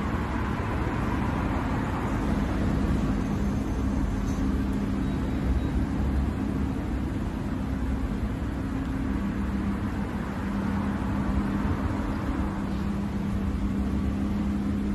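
Lamborghini Huracán's V10 engine idling steadily: an even low hum and rumble with no revving.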